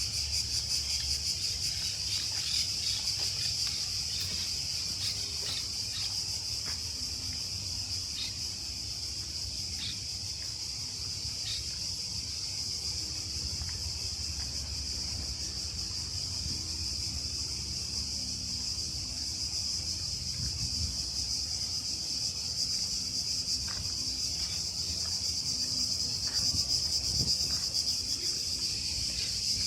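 Cicadas buzzing in a steady, unbroken high-pitched chorus, with a few faint footsteps on a garden path.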